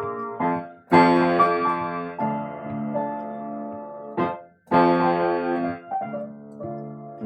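Electric keyboard in a piano voice playing slow held chords, with fresh chords struck about a second in and again just before five seconds.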